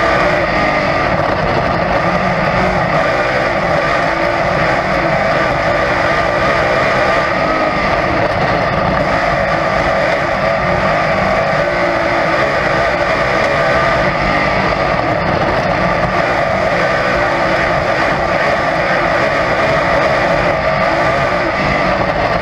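Dirt-track race car's engine running hard at racing speed, a loud, steady drone heard from inside the open cockpit, with wind and track noise mixed in.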